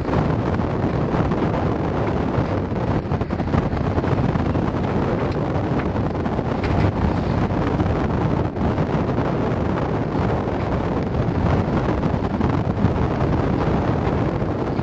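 Steady wind buffeting the microphone on a sailing yacht at sea, with a few faint clicks.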